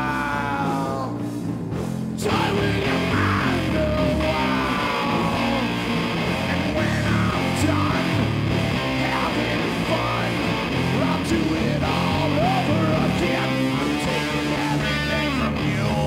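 Live rock band playing, with electric guitar over bass. The band thins out briefly about a second in, then comes back in full about two seconds in.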